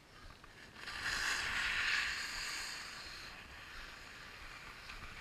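Skis hissing and scraping over packed snow, swelling about a second in and loudest for a couple of seconds before easing to a lower steady hiss.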